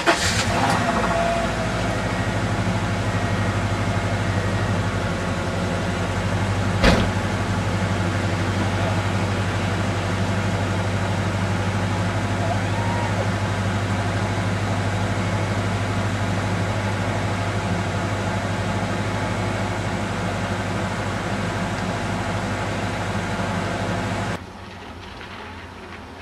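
Car engine running with a steady low hum. There is one sharp knock about seven seconds in, and the sound cuts off abruptly near the end.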